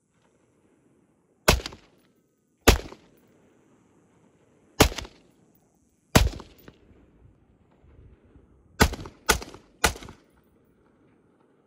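AR-15 rifle firing seven single shots at an uneven pace, the last three in quicker succession, each crack trailing off in a short echo.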